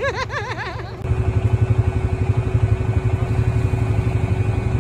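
A voice briefly, then from about a second in, an ATV engine running close by with a steady low pulse.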